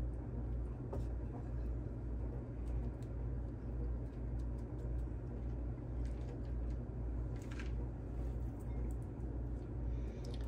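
A steady low hum under faint crunches and taps of raw chicken tenders being pressed and turned in crushed pork rind breading, with one brief rustle about three quarters of the way through.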